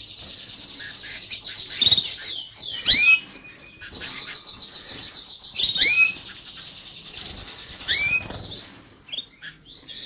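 Canaries singing in a continuous rolling trill, with loud curved call notes cutting in three times and the flutter of wings in the flight cage.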